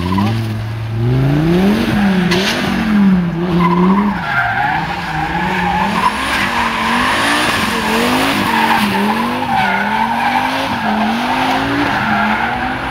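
Car doing donuts: the engine revs up and down about once a second while the tyres squeal continuously.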